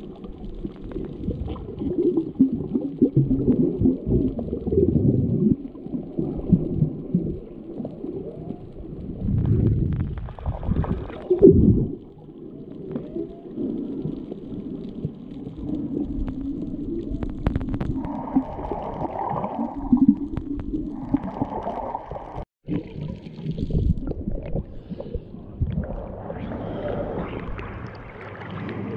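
Muffled underwater water noise picked up by a GoPro HERO7 while snorkeling, deep and dull, swelling and fading with the swimmer's movement. There are louder surges about ten seconds in, and a momentary cut-out about three quarters of the way through.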